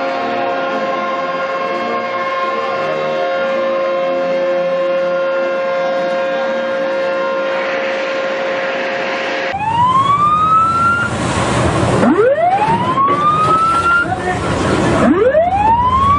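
A steady, unbroken tone with overtones held for about nine and a half seconds. It then cuts off suddenly and an emergency-vehicle siren takes over, sweeping up in pitch three times, about every three seconds.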